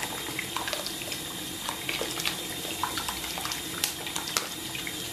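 Beer poured from a can into a pot of pork belly in braising liquid: a steady splashing pour with scattered small pops and ticks.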